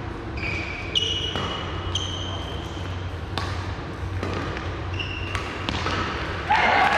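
Badminton rally: sharp racket strikes on the shuttlecock and short, high shoe squeaks on the sports-hall floor. About six and a half seconds in, a shout and applause break out.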